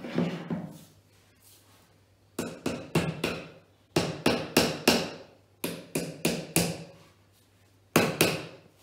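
A claw hammer tapping wooden dowels into the top edge of a particleboard IKEA Malm drawer panel, in quick runs of four or five sharp blows with short pauses between, then two more blows near the end.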